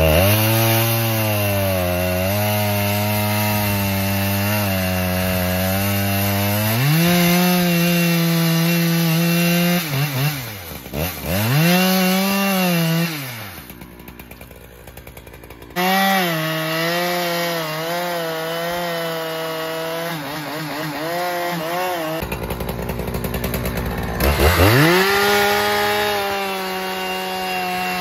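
Large chainsaw running at high revs under load as it cuts into a thick pine trunk. Its pitch drops and recovers twice about ten seconds in, then goes quieter for a couple of seconds before the cut resumes. Near the end it revs up again into a new cut.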